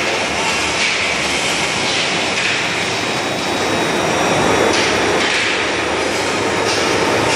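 Loud, steady din of forging-shop machinery running: a continuous rushing noise with no distinct blows, swelling slightly about halfway through.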